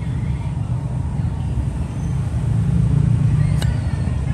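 A steady low rumble, with one sharp metallic click of a Zippo lighter about three and a half seconds in.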